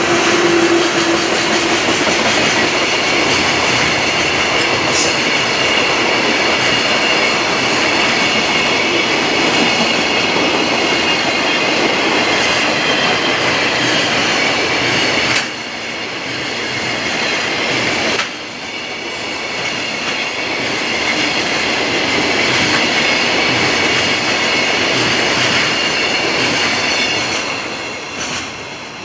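A JR Freight EF210 electric locomotive and a long train of container wagons rolling past on the track: a loud, steady rumble of wheels on rail with a high, steady ringing above it. The noise drops abruptly twice about halfway through.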